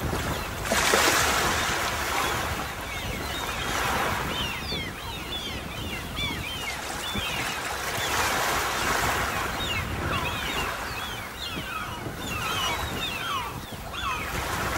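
Sea waves breaking and washing onto a beach, swelling every few seconds, the biggest surge about a second in. Many short high chirps sound over the surf, most of them near the end.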